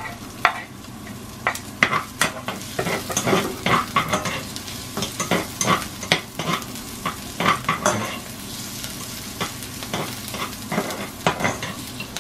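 Chopped garlic, chillies and ginger sizzling in hot oil in a nonstick pan, with frequent irregular clicks and scrapes of a metal spoon stirring and knocking against the pan.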